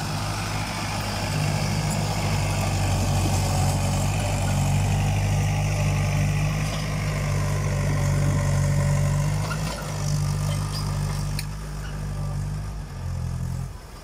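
Massey Ferguson tractor engine running steadily while pulling a digging implement through the soil, its note shifting near the end.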